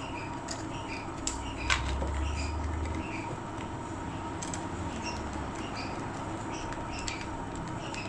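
Light, scattered clicks and scrapes of a screwdriver working the terminal screws of a water-heater wall switch as a wire is fastened in.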